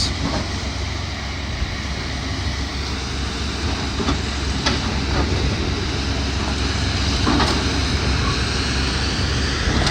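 Demolition excavators' diesel engines running steadily, with wind rumbling on the microphone and a few faint knocks of debris.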